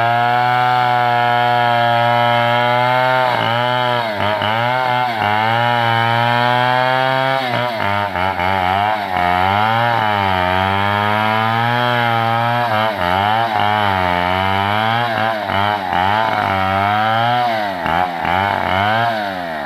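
Chainsaw cutting into an oil palm trunk at high revs. Its pitch holds steady for the first several seconds, then repeatedly sags and recovers as the chain bites into the wood.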